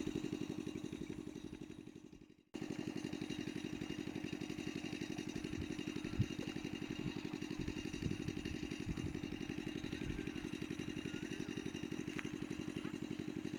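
An engine running steadily with an even, rapid throb, coming in suddenly about two and a half seconds in after the earlier sound has faded away. A few faint bird chirps near the end.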